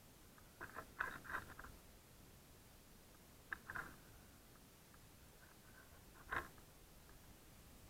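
Short scraping rustles of a gloved hand sliding a prusik hitch up a climbing rope. The rustles come in brief bursts: a cluster about a second in, one at about three and a half seconds and a sharper one near six and a half seconds, with near silence between.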